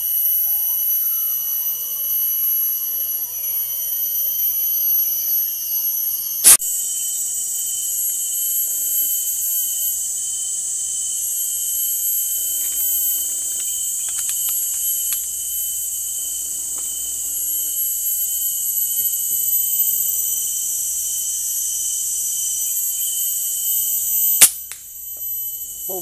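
Steady high-pitched drone of cicadas, with two sharp cracks from an FX Crown PCP air rifle being fired, one about six seconds in and one near the end.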